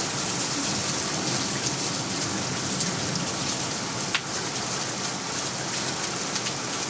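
Heavy thunderstorm rain falling steadily, a downpour just beginning to ease. A single sharp tick about four seconds in.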